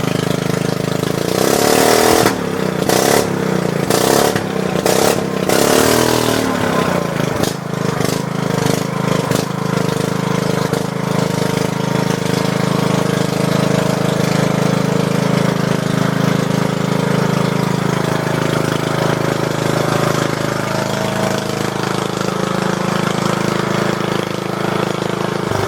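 Riding lawn mower's engine running loud: revved up and down several times with sharp bursts in the first few seconds, then running steadily at an even speed.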